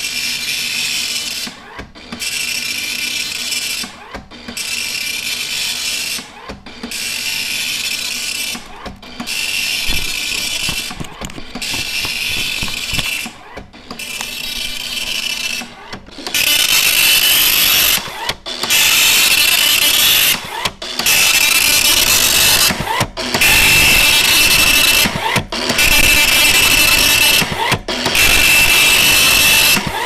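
Commodore MPS 801 dot-matrix printer printing a test page: the print head runs in loud passes of about two seconds, each followed by a short break before the next line, about thirteen in all. It gets louder about halfway through.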